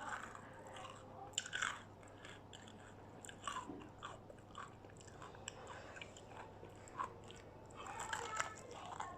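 Close-up chewing and biting of crispy battered fried food, with irregular crunches, the loudest about a second and a half in.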